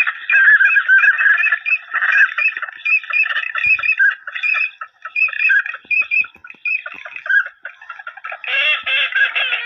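Waterfowl calling: a dense chorus of many short, honking calls overlapping without a break, thinning a little around the middle and filling in again near the end.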